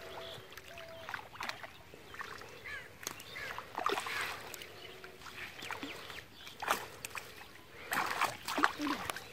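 Water splashing and sloshing in the shallows as a drag net is hauled ashore by hand, with fish flapping in the net. The splashes come irregularly and are loudest around four, seven and eight seconds in.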